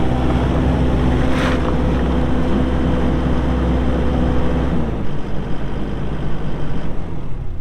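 Kubota SVL75-2 skid steer's four-cylinder diesel engine running steadily. Its steady engine note stops about five seconds in, leaving a rough rushing noise.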